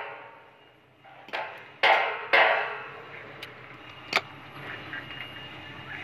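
An electric demolition hammer breaking rock falls silent at the start. A few short, loud bursts follow between about one and two and a half seconds in, then two sharp clicks, over a low steady hum.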